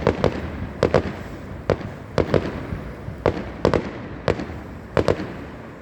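Aerial fireworks shells bursting in quick, irregular succession: about a dozen sharp bangs, some in close pairs, each trailing a short echo.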